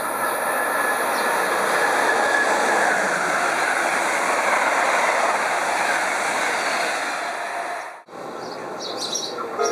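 An Amtrak train passing through the station at speed: a loud, steady rush of wheels and air that swells over the first few seconds and fades away. The sound cuts off sharply about eight seconds in, and a train horn starts right at the end.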